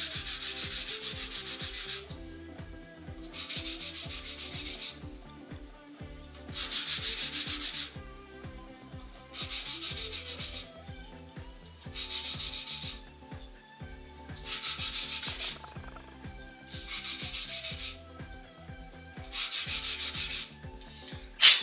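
A small plexiglas (acrylic) plate rubbed by hand on 400-grit sandpaper, smoothing its edges: eight spells of quick back-and-forth scraping strokes, each a second or two long, with short pauses between. A sharp knock just before the end.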